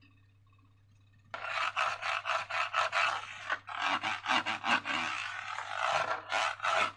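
Slime being squished and worked by hand, a dense run of sticky crackling and small popping clicks that starts about a second in.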